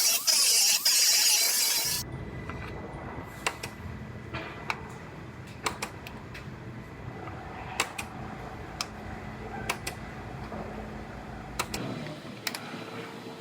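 Sheet-metal bodywork on a truck cab corner: a loud hiss that cuts off sharply about two seconds in, then a low steady hum with scattered sharp metallic clinks and taps.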